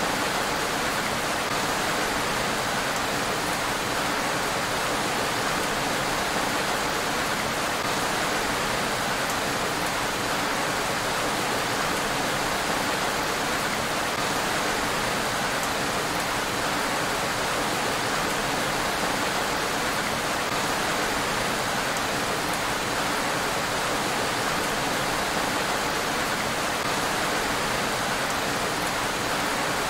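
Steady rain falling on a road surface: an even, unbroken hiss.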